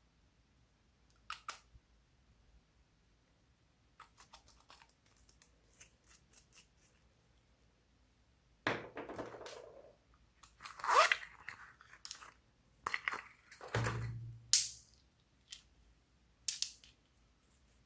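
Slime being worked by hand: sticky crackles and clicks, with a few wetter squelching stretches in the second half.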